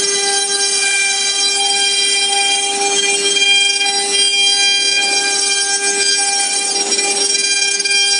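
CNC router spindle running at high speed, giving a steady high-pitched whine with many overtones as the bit cuts into a wooden board, with a light cutting hiss underneath.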